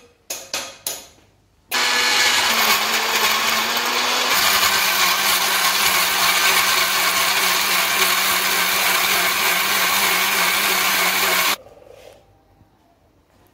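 Electric mixer grinder running at full speed, grinding onions, green chillies, tomatoes and ginger into a paste. A few knocks come first, then the motor starts about two seconds in. Its hum drops a little in pitch a couple of seconds later, and it cuts off suddenly near the end.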